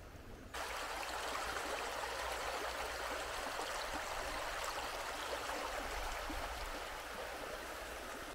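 River water rushing over a shallow, stony riffle: a steady hiss of flowing water that cuts in suddenly about half a second in.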